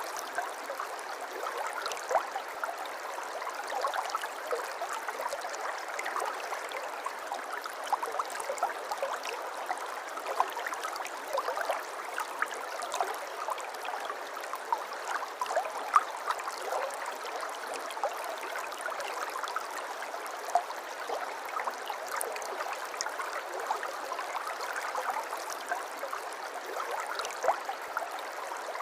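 Shallow river or stream flowing steadily, with a constant babble full of small splashes and gurgles.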